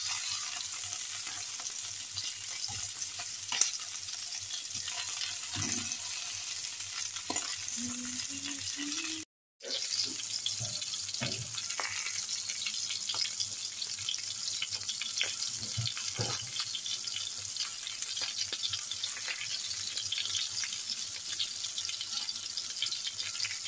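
Bone-in chops frying in a pan: a steady sizzling hiss with many small crackles and pops of fat. The sound drops out briefly about nine seconds in.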